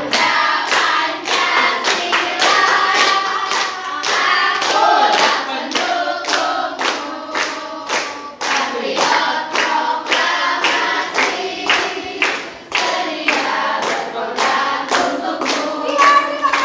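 A group of women singing an Indonesian national song together, clapping along in a steady beat of about two to three claps a second.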